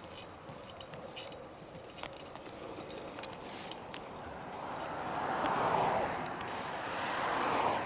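Riding noise from a fixed-gear bike rolling along a paved street: a steady hiss of tyres and air with scattered light clicks and rattles. The hiss swells twice in the last three seconds.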